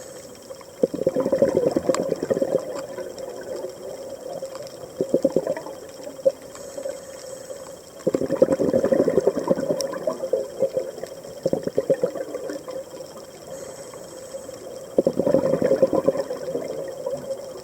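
Scuba diver's regulator exhaling underwater: bubbling bursts come about every seven seconds, near the start, about halfway and near the end, each lasting one to two seconds. A steady faint hum runs beneath them.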